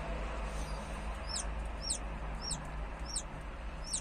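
Newly hatched chicks peeping: short, high, downward-sliding peeps repeating a little under twice a second, starting about a second in.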